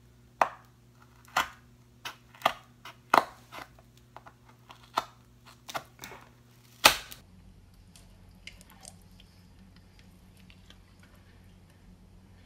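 A cardboard box being jabbed and pried at with a pointed tool because it will not open: about ten sharp cracks and taps, irregularly spaced, the last about seven seconds in the loudest. After that only faint small clicks.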